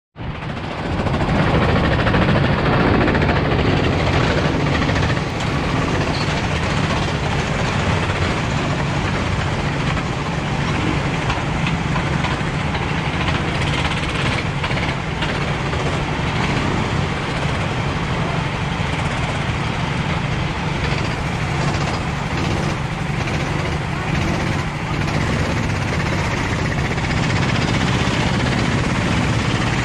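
Several rental go-kart engines idling together while the karts sit stationary, a steady drone.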